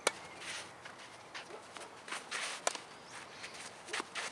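Tennis rally on a clay court: sharp racket-on-ball strikes, one right at the start, another about two and a half seconds later and more near the end, with players' footsteps scuffing on the clay between shots.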